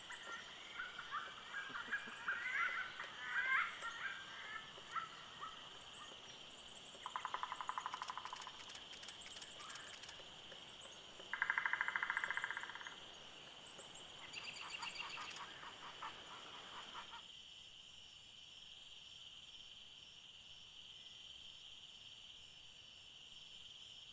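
Forest bird calls: chirping in the first few seconds, then three short, rapid rattling series, the loudest about halfway through, over a steady high insect buzz that carries on alone for the last several seconds.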